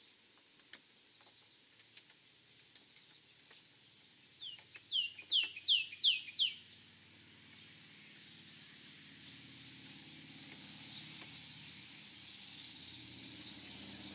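A songbird sings a quick run of about six down-slurred whistled notes near the middle. Faint scattered clicks come before it, and a steady low rumble and hiss slowly grows louder over the last few seconds.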